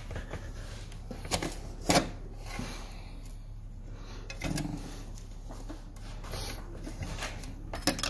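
Workshop handling noise from a rubber gasket being pressed into the channel of a metal motorcycle engine cover: quiet rubbing, with a couple of sharp clicks and knocks about one and two seconds in and another near the end as the cover shifts against tools on the bench.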